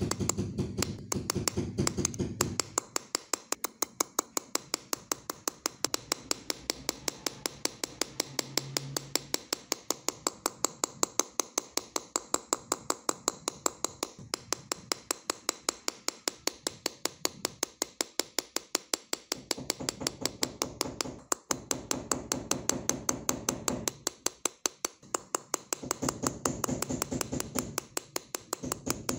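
Steady, even tapping of a small hammer on a hand-held steel engraving punch, driving its point into a brass sheet, about four sharp taps a second.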